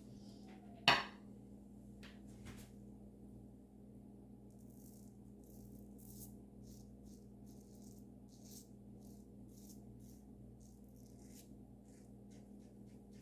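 Safety razor fitted with a Dorco blade scraping over lathered stubble on the neck in short touch-up strokes, faint and scratchy, coming in irregular runs. There is a sharp click about a second in.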